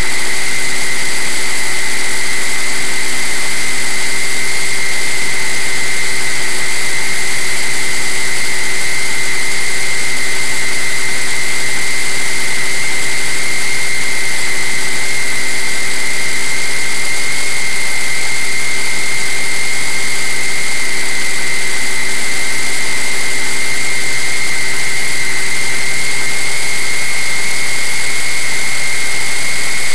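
RC flying wing's motor and propeller running at a steady speed, picked up by a camera on board: a constant high whine over a broad hiss of rushing air, unchanged through the turns.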